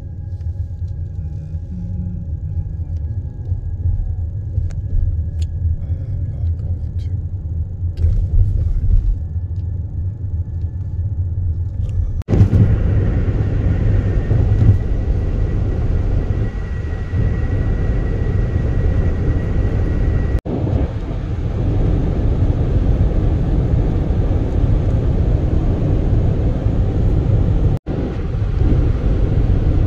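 Car cabin road noise: a low engine and tyre rumble while rolling slowly, then, after a cut about twelve seconds in, a louder steady rush of tyre and wind noise at highway speed, briefly broken twice by edits.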